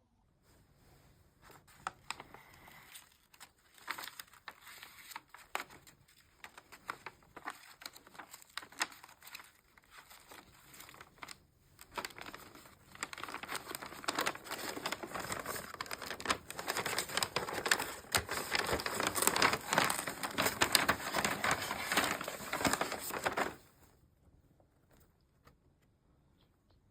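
Dense crinkling and crackling with many small clicks, growing louder partway through and cutting off abruptly about three seconds before the end.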